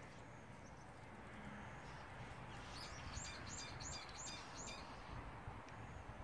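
A bird calling: a quick run of about six short, high chirps about three seconds in, over faint outdoor background noise.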